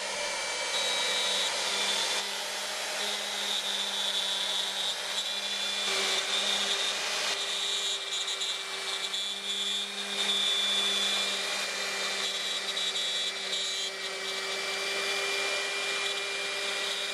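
CNC router spindle running a quarter-inch bit through a wooden board, a steady whine with the rushing noise of the cut and dust extraction, its texture shifting every few seconds as the bit moves along the toolpath.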